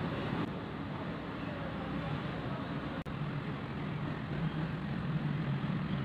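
Low, steady background noise with no distinct source, and one faint click about halfway through.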